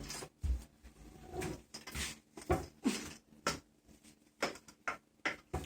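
Irregular clicks, knocks and rustling from packaging and parts being handled during an unboxing, about a dozen sharp taps spread across the few seconds.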